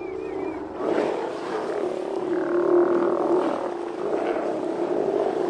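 Steller sea lion colony calling: many overlapping deep growls from the hauled-out animals, going on without a break. A few short high chirps at the very start.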